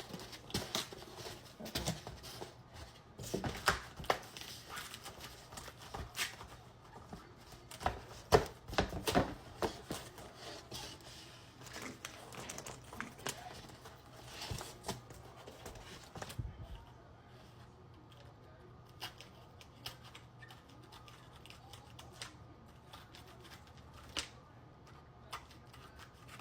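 Craft knife cutting through poster board: a busy run of short scratches and clicks that thins out in the last third to occasional faint ticks.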